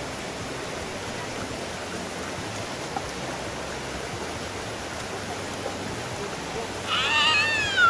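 Shallow creek water running steadily over rocks. Near the end a brief high, wavering call rises over it.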